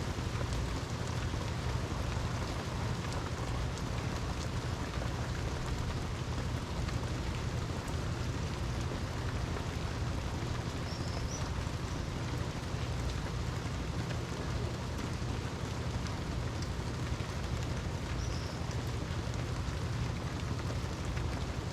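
Steady heavy rain falling, an even hiss with a continuous low rumble beneath it.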